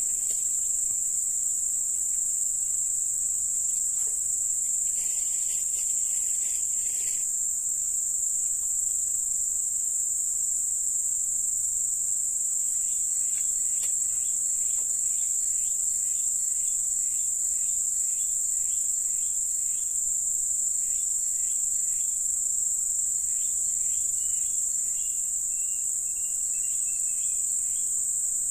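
Steady, high-pitched chorus of insects, shrilling without a break, with fainter quick chirps joining in during the second half.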